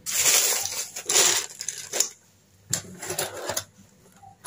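A clear plastic bag of small metal mount parts being handled and set down: the plastic crinkles and the parts inside clink in a few short bursts, the loudest in the first second and a half.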